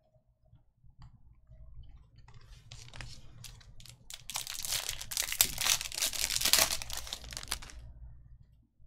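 Foil wrapper of an Upper Deck hockey card pack being torn open and crinkled, loud and crackly for about three and a half seconds from around the middle. Before it, softer rustling and clicks of cards being handled.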